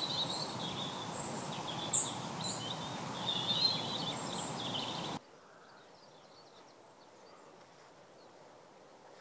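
Small birds chirping in short calls over a steady outdoor background hiss. The sound cuts off abruptly about five seconds in, leaving only faint low noise.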